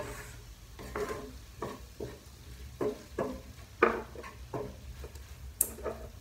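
A wooden spoon stirring and scraping mince sauce in a metal frying pan, about ten uneven strokes, over a light sizzle of frying.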